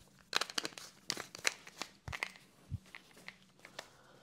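Irregular light clicks and crinkly crackles of hard plastic being handled: the lid going back onto a plastic jar of lye and the jar being moved about, with a couple of soft low thumps around the middle.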